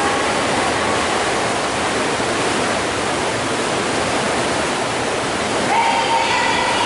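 Steady rush of churning water in an indoor paddling tank, stirred up by paddlers pulling their blades through it.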